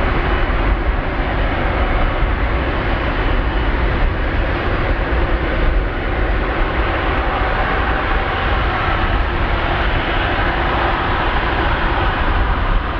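Jet airliner engines running with a loud, steady roar that is strongest in the deep bass and holds evenly throughout.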